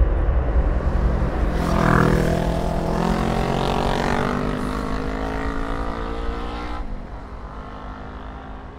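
Boeing E-3D Sentry's four CFM56 turbofan engines roaring on the landing roll, with a drone that climbs slowly in pitch for about five seconds. The roar then drops away suddenly, leaving a low rumble.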